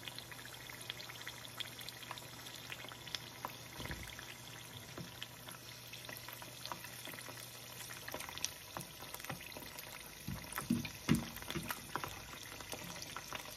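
Hot oil sizzling and crackling steadily in a frying pan as wontons and egg rolls deep-fry. A few knocks stand out about ten to eleven seconds in.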